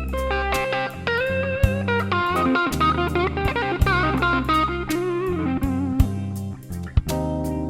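Slow blues music in C minor: electric guitar playing wavering, bent notes over bass and drums.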